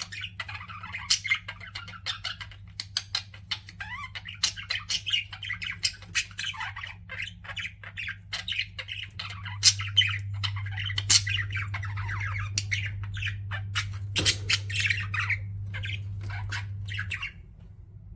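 Pet budgerigars chattering, a dense run of quick chirps and squawks that stops shortly before the end. A low steady hum runs underneath, louder in the second half.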